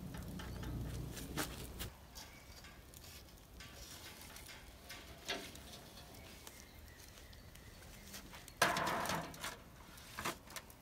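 Light metal clinks of a grill lid and tongs on a steel grill grate, then a short rustling clatter about nine seconds in as a rack of pork ribs is set down on a metal pan.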